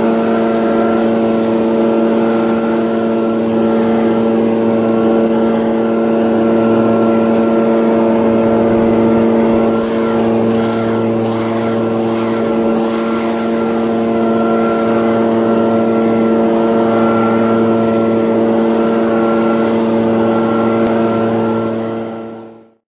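Echo PB-770H backpack leaf blower's two-stroke engine running steadily at high throttle, with the rush of air from the blower tube as it pushes a pile of wet leaves. The sound fades out near the end.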